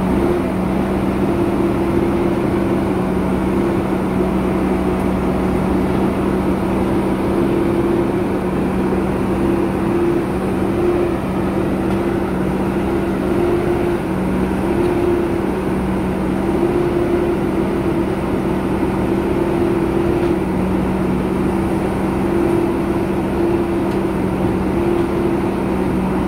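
JCB 3DX backhoe loader's diesel engine running steadily, with a constant droning hum.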